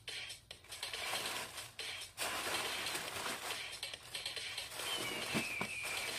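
Plastic tying ribbon and a plastic bag rustling and crinkling as the ribbon is pulled and worked around a trellis frame. A short falling whistle comes near the end.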